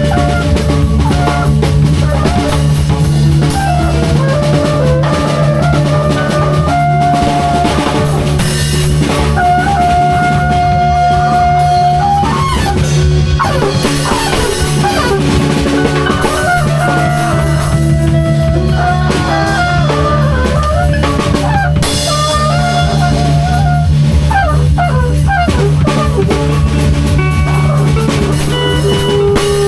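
Improvised band jam: a drum kit keeps a steady beat under a guitar playing a lead line of held notes with pitch bends.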